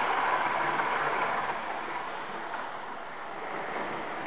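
Hornby OO gauge Eurostar model train passing at speed: a rushing rattle of wheels on the rails and the running motor. It is loudest at first and fades after about two seconds as the train moves away.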